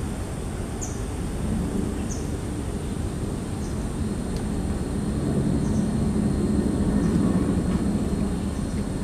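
Low, distant engine rumble that swells in the middle and stays up, with faint short high chirps every second or two.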